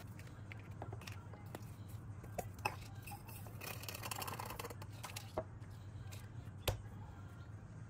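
Spice jars being handled: small plastic and glass clicks and knocks as caps are twisted off and a shaker lid is put on. A little under four seconds in comes a short rattling rush of dried rosemary being poured from a store jar into an empty plastic shaker jar.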